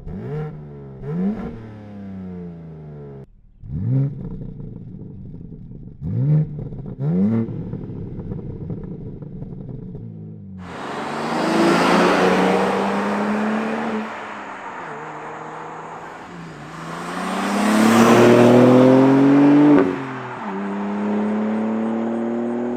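BMW G80 M3's S58 twin-turbo straight-six through its exhaust: a series of short throttle blips with quickly rising pitch, then, about ten seconds in, two much louder hard pulls with pitch climbing, easing off in between, and settling to a steadier engine note near the end.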